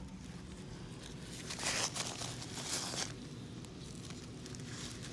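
Gloved hand scraping and clawing loose soil and dirt clods out onto a woven plastic tarp: scratchy rustling of dirt and tarp, with a couple of louder scrapes near the middle.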